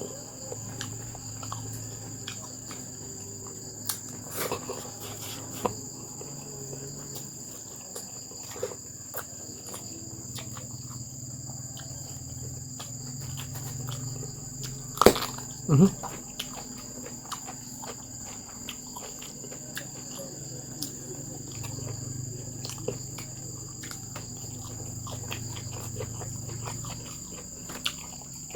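Steady, high-pitched chirring of crickets, with a few sharp clicks and knocks scattered through it, the loudest pair about halfway in.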